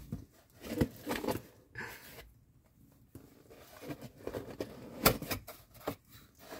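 Cardboard box rustling, scraping and knocking as a cat paws from inside it and a hand grabs and pokes at it, with a few sharp taps and a quieter stretch in the middle.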